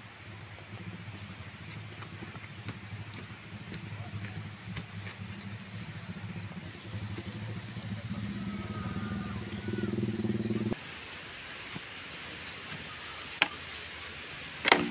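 An engine drones steadily, slowly growing louder, then cuts off abruptly about eleven seconds in. Over it, insects keep up a steady high buzz and a bird gives a few short chirps. Near the end come two sharp knocks.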